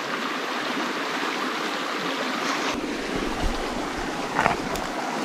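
Small rocky creek flowing steadily past the microphone, a continuous rush of water, with a brief sharper sound about four and a half seconds in.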